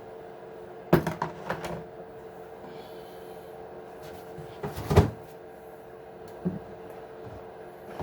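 Small RC truck parts being handled and set down on a work surface: a short clatter of knocks about a second in, one loud knock near the middle, then a lighter click.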